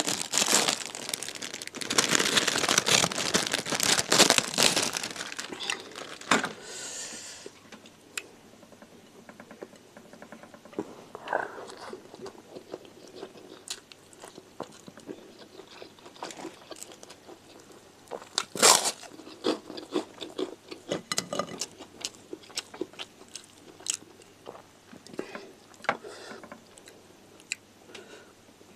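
Loud, dense crunching of crispy ring-shaped kerupuk crackers being bitten and chewed for about the first five seconds. Then quieter chewing and mouth sounds, broken by one sharp loud crunch a little past the middle.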